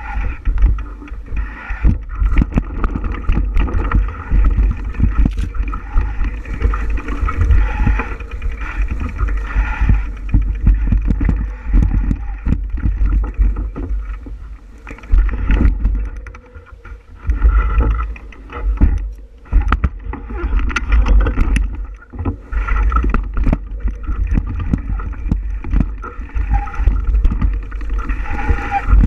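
Bicycle riding on a trail, heard from a camera riding along: a steady low rumble of wind buffeting the microphone, with frequent rattles and knocks from the bike over the bumpy ground. The level dips briefly a few times midway.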